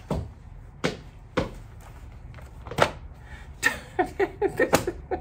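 A woman's voice making breaths and short wordless sounds, then a quick run of short voiced sounds near the end.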